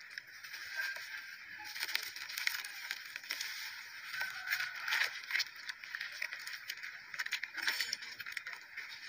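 Hands squeezing and crumbling soft red dirt in water, giving an irregular wet crackling and squishing, louder in a few spurts.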